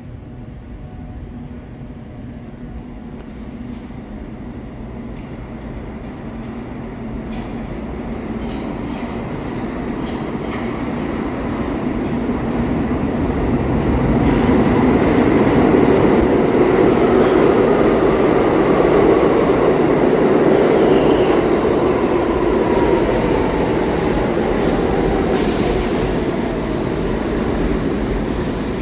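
New York City subway train coming in, its rumble building over about fifteen seconds and then easing a little. There are faint clicks in the first half, a whine that falls in pitch partway through, and a brief high burst near the end.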